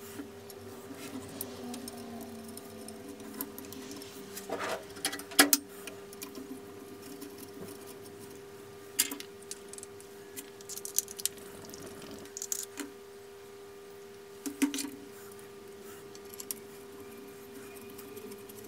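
Small metal parts clicking and tapping as a stud is handled and worked into a cast-iron gearbox housing with a small hand tool. The sharpest clicks come about five seconds in. A steady low hum runs underneath.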